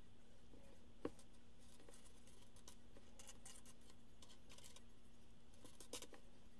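Small plastic Lego bricks clicking and rattling against each other as a hand sorts through a loose pile on a wooden tabletop, with one sharper click about a second in and a few more near the end.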